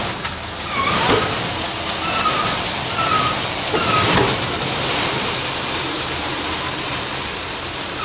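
Crushed stone pouring and sliding out of a tractor trolley's raised tipping bed as it dumps its load: a steady rushing hiss, with the tractor's engine running underneath.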